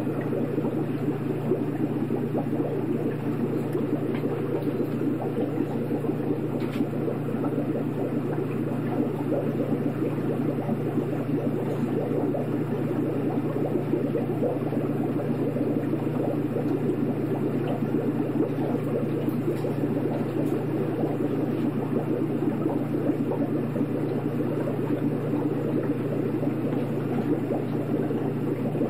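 Aquarium filter running: a steady low hum with water bubbling and churning over it.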